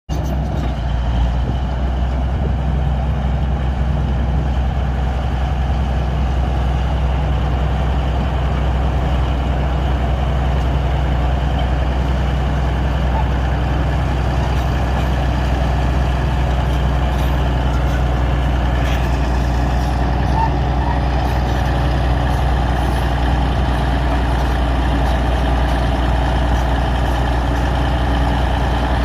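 Bulldozer's heavy diesel engine running at a steady speed.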